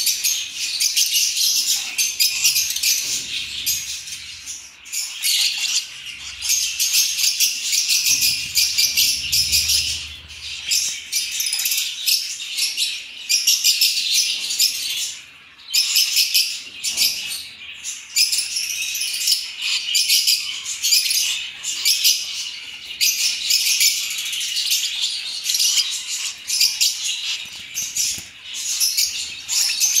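Young blue masked lovebirds chattering shrilly and continuously in a dense, rapid stream of chirps, the begging of hand-fed chicks, with a couple of short lulls.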